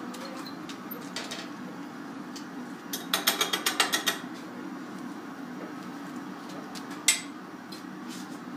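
A quick run of sharp metal taps on a glassblower's pipe, about ten in a second, followed a few seconds later by a single sharp knock. This fits tapping the pipe to knock the glass piece off into a gloved hand. A steady low hum lies underneath.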